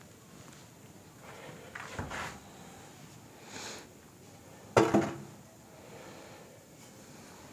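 Wooden sticks knocking and scraping against debris on a dusty floor in a small room: a scrape about two seconds in, a lighter one a little later, and a sharp double knock near the middle, the loudest.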